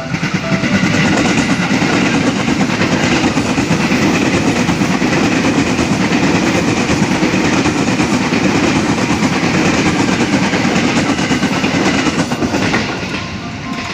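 A train passing close by at speed: a loud, steady rush of wheel and rail noise with rapid clatter. It swells in at the start and fades near the end as the train goes by.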